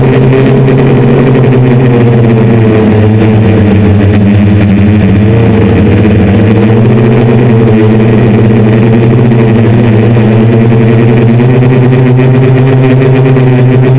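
Hexacopter's six brushless motors and 10-inch propellers droning loudly at the onboard camera, a steady hum whose pitch shifts a little as the throttle changes, with wind noise on the microphone.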